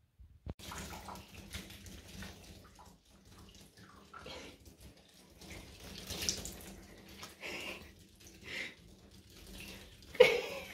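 Bathwater splashing and sloshing as a wet cat is scrubbed and rinsed, with a bath tap running, uneven and surging. One sharp, loud sound stands out near the end.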